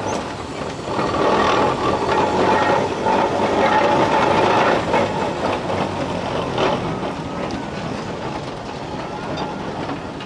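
Steam traction engine driving slowly past at close range: the steam engine runs with steady mechanical clanking from its gearing and lugged steel wheels, loudest as it comes alongside.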